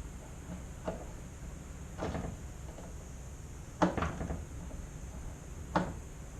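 A handful of short knocks and clacks from parts and tools being handled, the sharpest about four and six seconds in, over a steady low hum.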